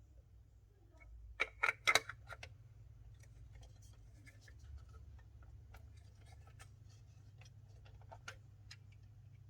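Faint handling sounds of a camera lens and its packaging. A quick run of sharp clicks and taps comes about a second and a half in, followed by scattered light ticks, all over a steady low hum.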